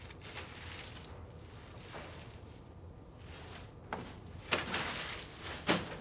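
Handling sounds as a plastic-wrapped bundle of clothes is picked up from a bunk: rustling and soft knocks, with two sharper thuds about four and a half and nearly six seconds in.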